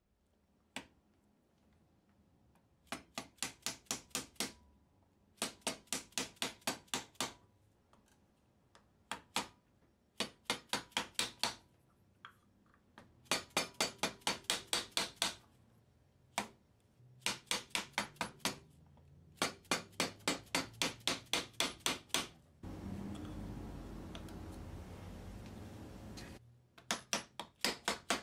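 Fret wire being driven into the guitar's fingerboard slots with a small plastic-headed fret hammer: quick, light taps in runs of six to ten, about six a second, with short pauses between runs. Near the end the tapping breaks off for about three seconds of steady noise.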